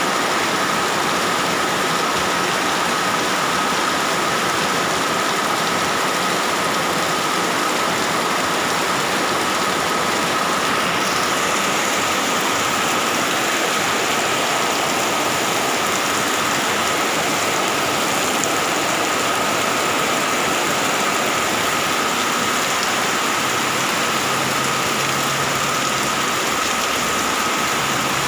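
Heavy rain falling steadily, with runoff pouring off an awning edge and splashing onto a concrete ledge and the wet pavement.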